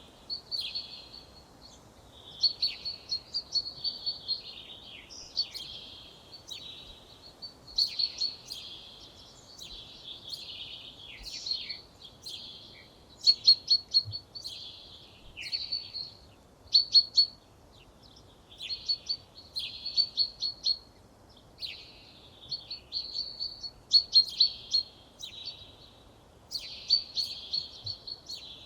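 Songbirds singing: a steady series of short, high-pitched phrases, each made of quick repeated notes and trills, coming every two to three seconds, with a faint low background noise.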